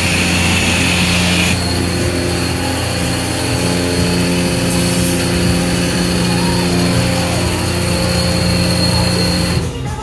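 Self-serve car wash high-pressure pump and spray wand running: a steady motor hum under a loud hiss of water spray. The hiss changes about a second and a half in, and the spray cuts off just before the end.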